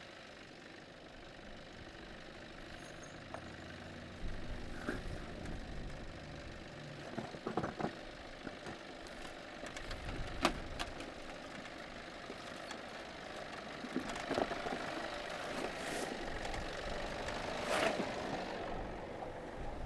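4WD vehicle engine running at low speed as it crawls down a rough, narrow track, with scattered knocks and clunks. It gets louder about four seconds in.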